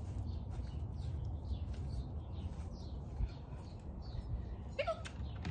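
Small birds chirping over and over in the background, over a steady low rumble. Near the end comes one short high-pitched call that bends up and down.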